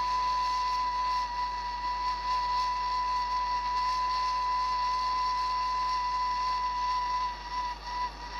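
Gas brazing torch burning with a steady high whistle over its hiss; the whistle wavers and dips about eight seconds in.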